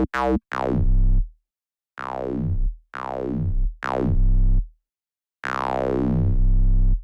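Synthesized squelch bass: a low square wave through a bandpass filter whose cutoff an envelope sweeps downward, so each note gives a squelchy "ow". About six notes of different lengths, the last one held longest.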